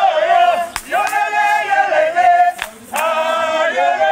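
A group of voices singing together in long held phrases, with a short break about a second in and another about two and a half seconds in.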